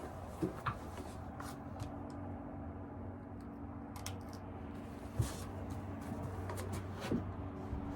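Handling noises while the MagnetoSpeed chronograph is being plugged in: a few scattered light clicks and short knocks over a low steady hum.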